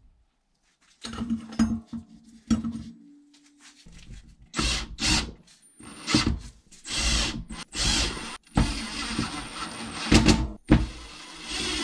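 Cordless impact driver running in repeated short bursts on the disc-brake rotor bolts of a bicycle wheel hub, after a few knocks of parts being handled in the first seconds.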